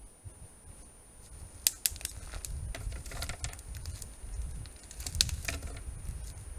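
A moose moving right up against a trail camera: sharp clicks and snaps of twigs and brushing, with low thudding from its steps and body close to the microphone. Under it runs the camera's faint steady high whine.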